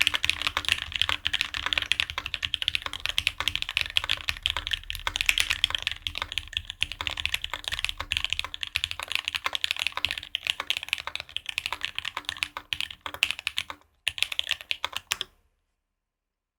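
Fast, continuous typing on an E6.5 custom mechanical keyboard with an aluminum plate, lubed Cherry MX Hyperglide Red linear switches and GMK doubleshot ABS keycaps. There is a brief pause near the end, then a last flurry, and the typing cuts off abruptly.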